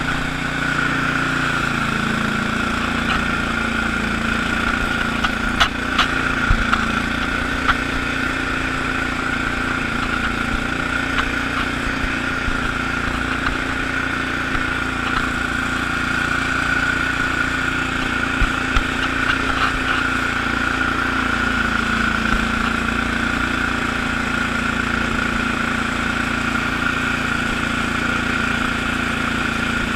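Allis-Chalmers HB-112 garden tractor engine running steadily while driving a front-mounted rotary broom through snow. A few short knocks come around six to eight seconds in and again near twenty seconds.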